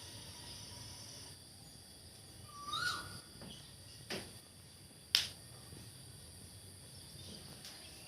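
Quiet ambience with a steady high, insect-like hiss. About three seconds in there is a short rising chirp, and it is followed by two sharp clicks about a second apart, the second the loudest.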